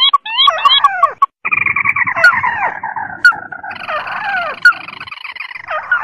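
Recorded calls of ruddy-breasted and white-browed crakes, played as a bird-trapping lure. A quick series of notes sliding up and down comes first. After a short break there is a dense run of loud chattering calls full of falling notes.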